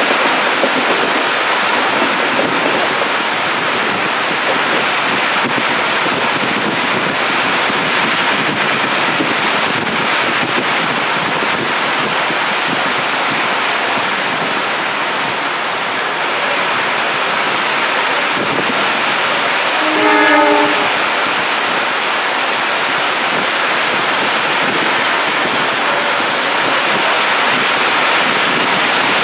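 Heavy rain pouring steadily. About two-thirds of the way through, a train horn gives one short blast.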